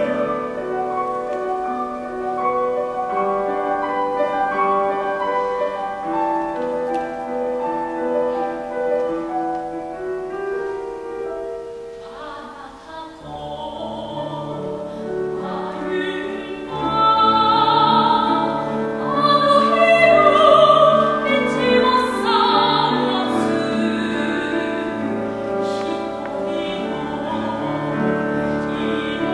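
A grand piano plays on its own, dropping quiet about twelve seconds in. A classically trained soprano then comes in, singing with wide vibrato over the piano accompaniment.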